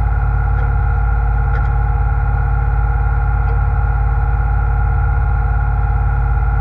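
A seine boat's engine running at a steady, unchanging drone while under way, with a few faint clicks.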